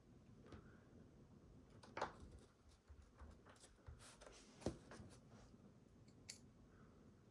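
Faint, scattered clicks and taps of a screwdriver and small screws as the screws are fitted back into a plastic computer chassis, with two sharper clicks about two seconds and about four and a half seconds in.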